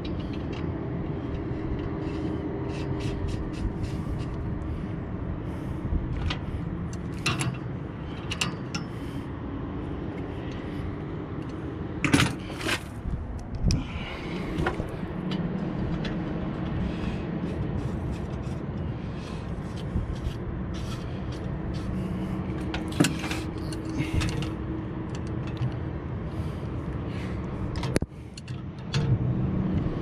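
Steady low mechanical drone, with scattered light metallic clicks and scrapes of a hand tool working on the copper refrigerant fittings of a rooftop AC unit, and a sharper knock about twelve seconds in.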